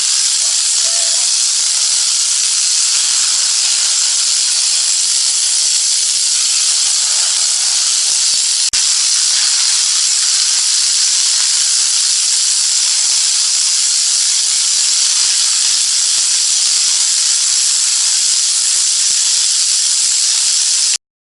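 Pressure washer jet spraying with a loud, steady hiss, broken by a momentary dropout partway through and cutting off abruptly near the end.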